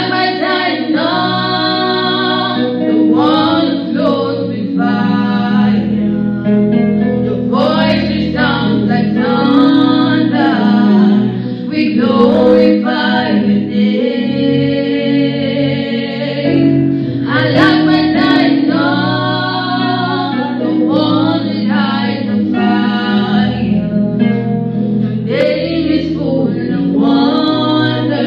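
Two women's voices singing a slow gospel worship song together into microphones, in long phrases, over held low backing chords.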